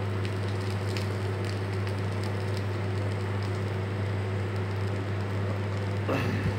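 Chicken fillet frying in a nonstick pan in very little oil: a steady sizzle with scattered small crackles, over a steady low hum.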